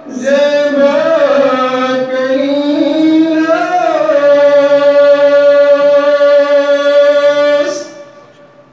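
A man singing a naat solo: a winding melodic run, then one long held note that breaks off about a second before the end.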